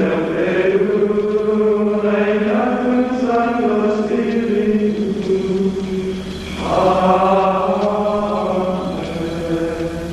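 Low male voices chanting in unison in a slow, solemn monastic plainchant, holding long notes, with a new, louder phrase coming in about two-thirds of the way through.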